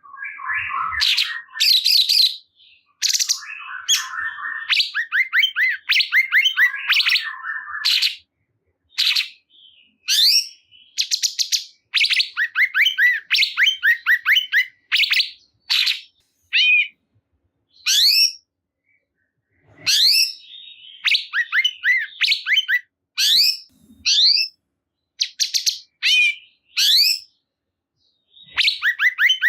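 A cungkok songbird singing in energetic, repeated phrases of rapid chirps and whistles, each burst under a second long with short pauses between, and a buzzy chatter mixed in during the first few seconds. This is the excited, full-voiced song ('gacor') used to stir other cungkok birds to sing.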